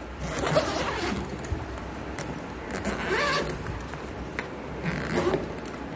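The zipper of an Aristocrat Photon Strolly hard-shell suitcase being pulled open in three short rasping runs.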